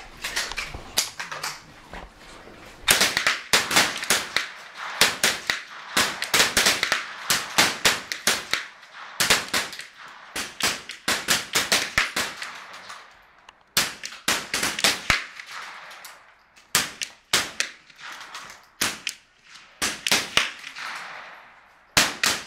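Several .22 rifles firing on a firing line during a timed string of fire. Sharp cracks come at uneven intervals, often several a second as the shots of different shooters overlap, with a few short lulls.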